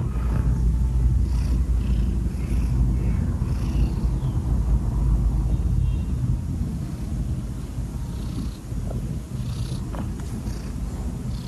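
A cat purring close to the microphone: a steady low rumble that eases somewhat about eight seconds in.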